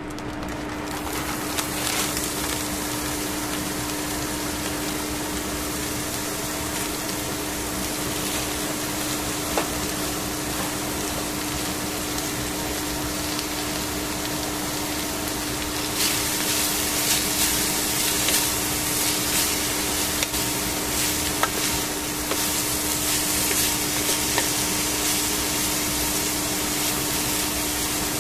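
Shredded cabbage and carrot frying in oil in a stainless steel pan: a steady sizzle over a constant low hum. It gets louder and hissier a little over halfway through, with a few light clicks of a wooden spatula.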